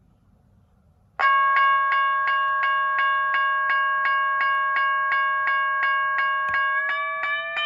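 General Signals Type 1 electronic railroad crossing bell starting to ring about a second in: rapid electronic gong strokes at about three a second, over a steady multi-tone ring whose pitch creeps slightly upward near the end.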